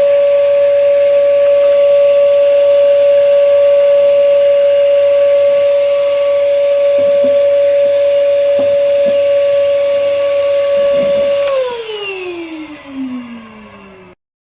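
Lavor Ashley 310 ash vacuum's 800 W suction motor running with a steady high whine, with a few light knocks. About three-quarters of the way in it is switched off and the whine falls in pitch as the motor spins down, stopping near the end.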